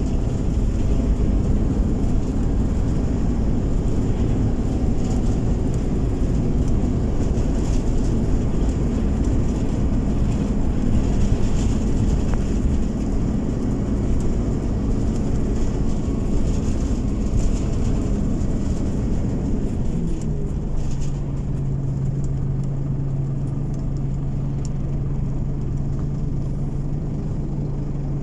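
Scania OmniCity city bus heard from inside the cabin: engine and road rumble with a steady engine tone while the bus drives. About twenty seconds in, the tone drops and settles into a lower, steady hum.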